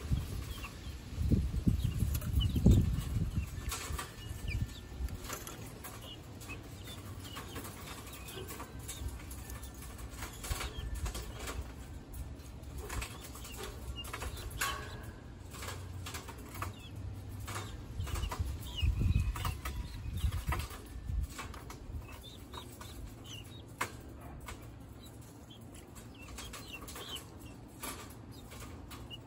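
Young guinea fowl pecking at feed in a wire cage: scattered sharp pecking clicks, faint chirps, and a couple of louder low rustling flurries, one just after the start and one about two-thirds through.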